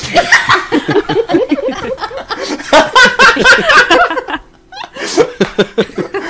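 Loud human laughter in rapid bursts, mixed with speech, that breaks off briefly about four and a half seconds in and then resumes.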